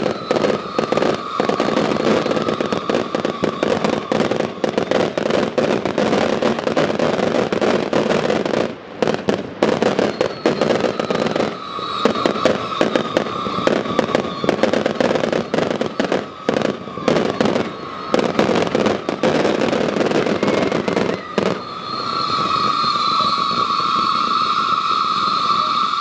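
Fireworks going off in rapid succession: dense bangs and crackling from fountains and crackling comets. A high whistling tone sounds at times, and near the end a strong steady whistle takes over while the crackle thins.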